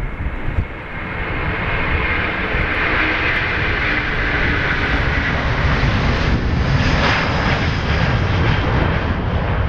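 Airbus A330 twin turbofan engines at take-off thrust during the take-off roll: a loud, steady jet noise with a deep rumble underneath, building over the first couple of seconds and then holding.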